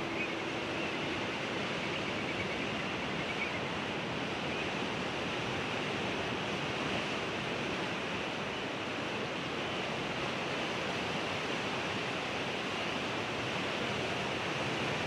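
Ocean surf: a steady, even wash of waves, with no music.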